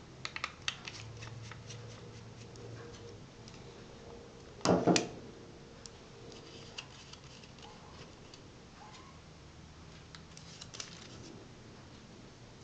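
Small clicks and taps of a laptop's parts and tools being handled during disassembly, with a louder double knock about five seconds in.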